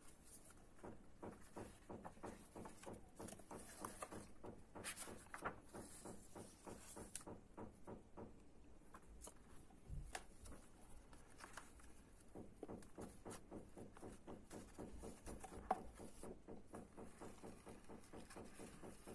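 Quiet paper handling: the pages and paper inserts of a book being slid, unfolded and turned, with many soft rustles and light ticks.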